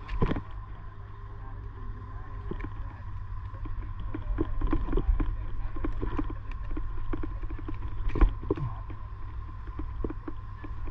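Gloved hands handling a thick stranded conductor jumper, giving scattered knocks and taps with a louder thump about a quarter second in and another about eight seconds in, over a steady low rumble and a faint steady high tone.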